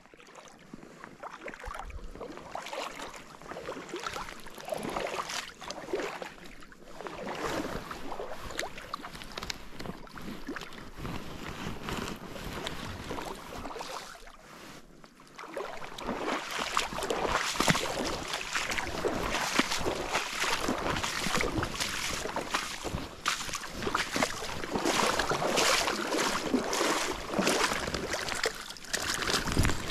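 A hooked brown trout splashing and thrashing in shallow, weedy water, irregular and noisy, growing louder and busier about halfway through as it is drawn into the shallows.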